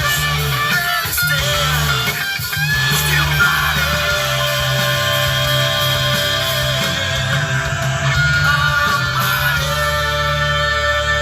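Background music: held melodic notes over a steady low bass line.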